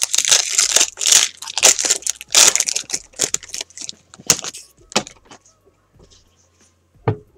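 Foil wrapper of a Bowman Chrome baseball card pack being torn open and crinkled for about three seconds. A couple of sharp clicks follow as the cards are handled.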